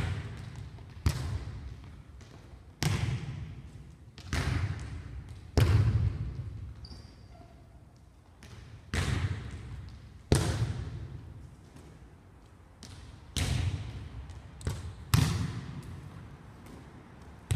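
A volleyball being passed and set back and forth: about a dozen sharp smacks of the ball off hands and forearms at irregular gaps of one to three seconds, each ringing on in the echo of a large gym.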